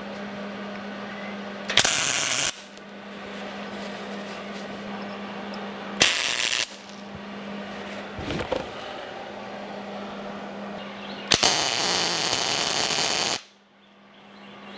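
MIG welder striking three tack welds, each a burst of crackling arc, tacking hex nuts to steel discs. The first two tacks are short and the third lasts about two seconds, with a steady low hum between them.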